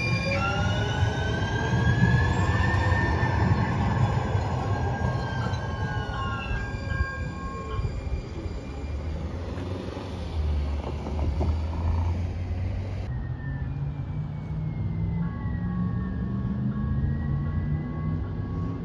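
Electric streetcar passing by, its traction motors whining in several tones that rise in pitch over the first few seconds and then fall away, over the rumble of wheels on rail. The sound jumps at an edit about two-thirds of the way through, and the whine and rumble carry on from a farther-off streetcar.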